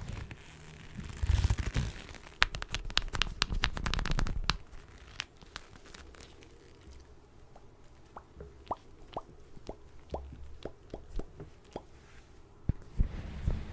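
Leather motorcycle gloves rubbed, squeezed and creased together close to a microphone. For the first four or five seconds there is dense crinkling and creaking with many sharp clicks. After that come sparser, quieter leather creaks, with a few soft thumps near the end.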